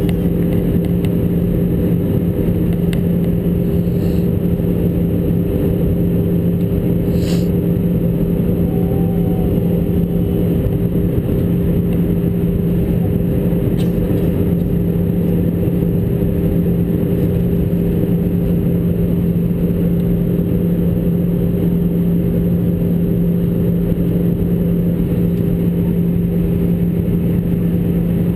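Steady cabin noise of a twin-engine jet airliner on approach, heard inside the cabin beside the engine: an even rush of air under a constant low hum. A faint click sounds once, about seven seconds in.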